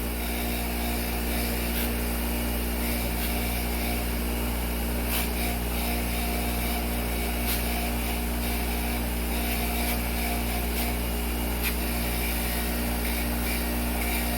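Small handheld power tool with a brush running steadily, roughing up the edges of magnets rather than grinding them down, with a few faint ticks of contact.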